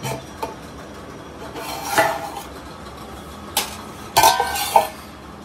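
Stainless steel cook-pot lid and pot clanking against each other as the lid is taken off after dum cooking: two light knocks at the start, a ringing clang about two seconds in, another knock, then a quick cluster of ringing clanks near the end.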